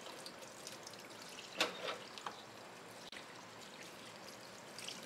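Tap water pouring steadily into a stainless steel sink over a gutted rockfish as fingers rub and rinse out its blood line, with small splashes throughout and one louder splash about a second and a half in.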